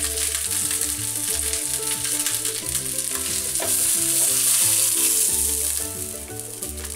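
Rendered pork fat sizzling in a hot dry frying pan as a browned pork shank is lifted out with tongs. The sizzling grows loudest about four to five seconds in and dies down near the end, once the pan is empty. Background music plays under it.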